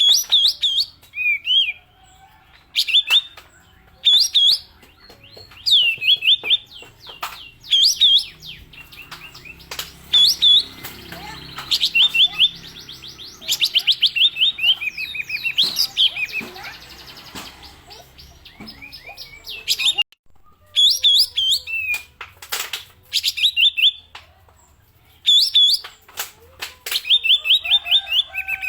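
A kapas tembak songbird singing its 'pistol' song. It gives loud phrases of rapid, repeated chirping strokes, about a second each with short pauses between, with sharp snapping notes among them.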